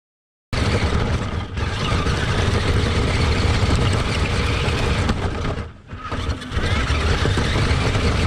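RC truck driving, heard close up: a steady, loud, noisy rumble of its drivetrain and tyres that cuts in abruptly about half a second in and dips briefly about two-thirds of the way through.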